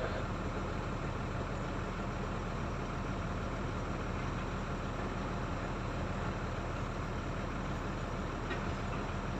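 Heavy diesel engine of earth-moving machinery running steadily, a continuous low hum with no sharp knocks or changes.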